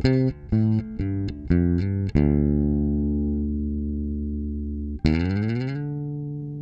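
Intro music sting on guitar: a quick run of plucked notes, then a chord left ringing and slowly fading; about five seconds in a second chord is struck, slides up in pitch and holds.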